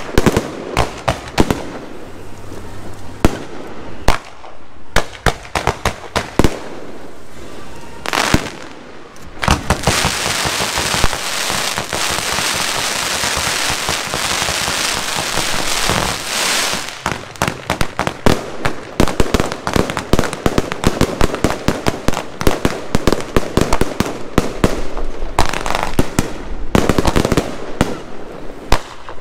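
Aerial fireworks bursting, many sharp bangs in quick succession. From about ten seconds in, there are some seven seconds of dense, unbroken crackling, and then the rapid bangs resume to the end.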